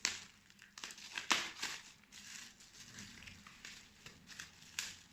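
Packaging being handled and opened by hand: irregular rustling with a few sharp crackles, the loudest about a second and a half in.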